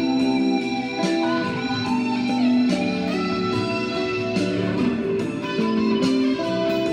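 Guitar music: plucked notes and chords held and ringing, with a new one struck every second or so.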